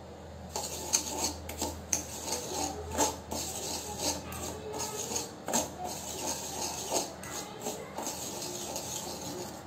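Spoon stirring and scraping damp granulated sugar around a steel kadhai, with irregular gritty scrapes and clinks against the metal as the sugar and water are heated to melt for caramel.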